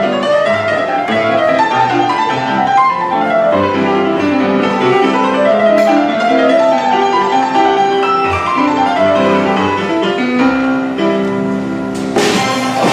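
Classical keyboard music, played as quick running piano-like notes. Just before the end it gives way to a louder, noisier sound.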